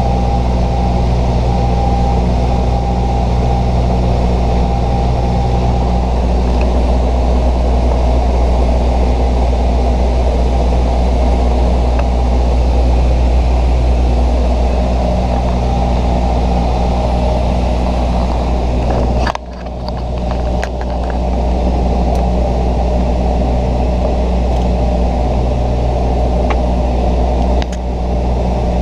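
The steady, loud drone of a Bombardier Dash 8-100's twin turboprop engines and propellers in cruise, heard inside the cockpit, with a low hum and several constant tones. About two-thirds of the way through the sound drops away suddenly for a moment and then returns, and there is a smaller dip near the end.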